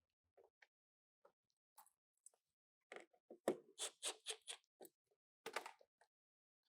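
Faint clicks and scraping of small parts being handled by hand: a few scattered ticks, then a quick run of clicks about three seconds in and another short cluster near the end.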